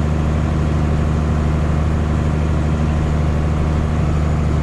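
John Deere 4640 tractor's six-cylinder diesel engine running steadily with a deep, even drone.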